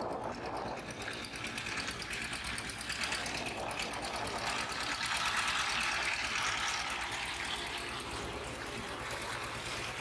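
Two-wheel walking tractor (power tiller) with a single-cylinder diesel engine running steadily under load as its wheels work through a flooded, muddy paddy, its engine note rising a little about halfway through.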